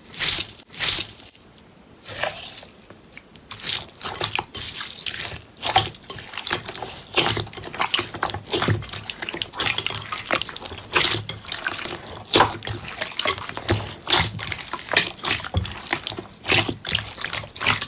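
A hand squeezing and squishing a bowl of green clear slime packed with small beads: a quick, irregular string of wet squelches and clicky pops.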